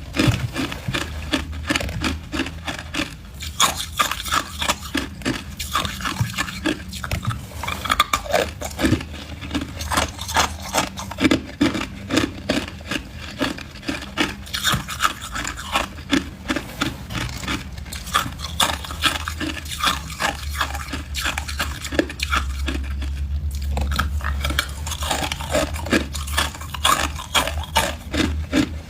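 Ice being bitten and chewed, a dense run of sharp crunches several to the second that keeps going without a break.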